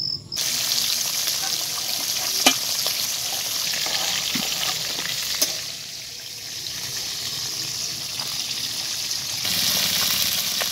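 Fish pieces frying in hot oil in a steel wok over a wood fire: a steady sizzle that grows louder near the end, with two sharp clicks along the way.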